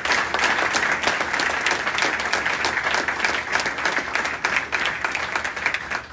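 Audience applauding: dense clapping from a roomful of people, dying away near the end.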